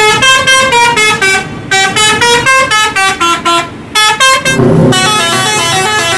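Indonesian tour bus's multi-tone musical 'telolet' horn playing a fast tune of short stepped notes, in runs broken twice by brief pauses. Near the end the tune fades under the bus's engine and traffic rumble.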